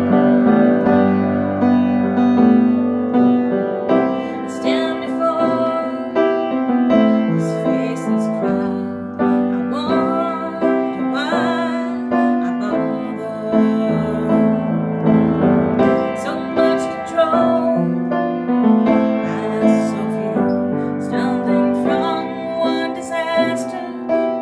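Piano playing a slow song, with a woman singing over it in places.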